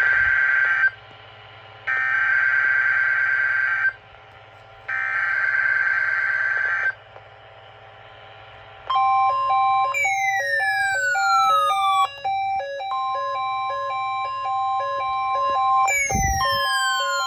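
Emergency Alert System SAME header: three buzzy digital data bursts, each about two seconds long with a one-second pause between, carrying the coded alert. About nine seconds in, an electronic alert tone sequence starts: a steady beep over alternating lower beeps, with falling whistles sweeping down twice.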